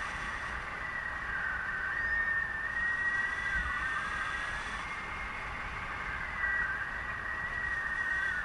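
Airflow rushing over the microphone of a paraglider in flight, a steady low rumble with a thin, high whistling tone that wavers slightly in pitch.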